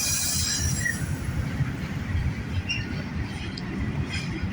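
Double-stack freight train rolling past close by: a steady low rumble of cars and wheels on the rails, with a short high hiss at the start and faint high wheel squeal now and then.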